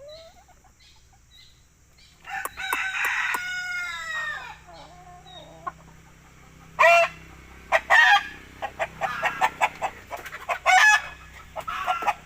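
A rooster crows once about two seconds in, a long call that falls in pitch. From about seven seconds on come several short, loud squawks and clucks, with quick clicks between them.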